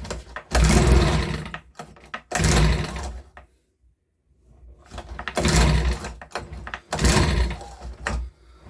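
Recoil starter of a Makita BHX2500 four-stroke leaf blower being pulled about four times on choke, the cord whirring and the little engine turning over with each pull. The blower is a non-runner being diagnosed for a suspected carburettor problem.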